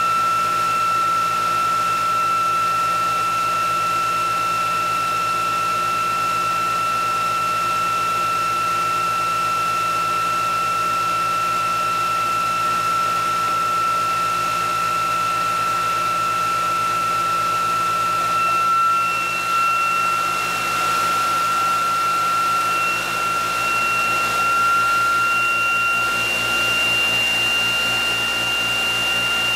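Electric motor-and-generator test rig running at speed: a steady high whine with a second tone above it over a low hum. The pitch creeps up slightly about two-thirds of the way through.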